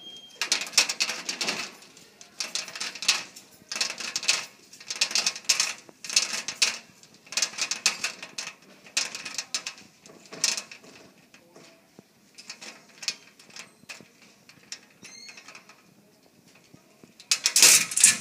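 A school locker's built-in combination dial being turned in short bursts of rapid clicking, about nine spins. A louder metal clatter comes near the end as the latch is lifted and the locker door swings open.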